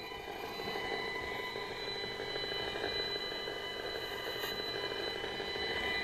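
Safe and Sound Pro microwave meter's audio output: a steady electronic tone in several high pitches, with a faint short crackle near the start and another about four and a half seconds in. The crackles are the meter picking up a military radar's pulse, which repeats about every four seconds.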